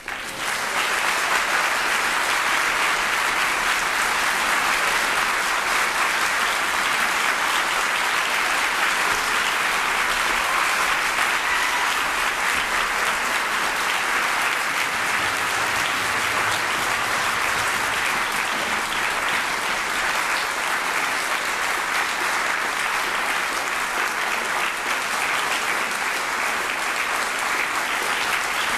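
Concert-hall audience applause, starting suddenly and holding steady.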